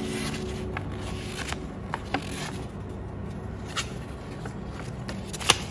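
Folded paper leaflet being unfolded and handled, rustling and crackling, with one sharp click near the end.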